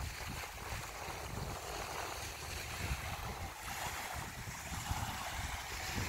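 Wind buffeting the microphone in an uneven low rumble, over a soft, steady hiss of small waves washing onto a sandy shore.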